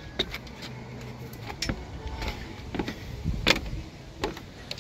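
Camera handling noise: scattered sharp knocks and rubbing as the camera is held against a hand, about six knocks, the loudest about three and a half seconds in.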